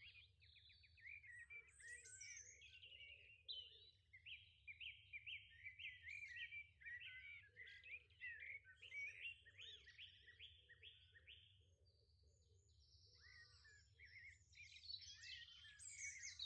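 Faint birdsong: a quick run of evenly repeated chirps, then a pause and more scattered chirps near the end.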